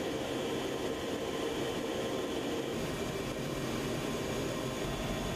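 AH-64 Apache helicopter running, heard from inside the cockpit: a steady mechanical hum, with a low rumble that grows stronger about halfway through.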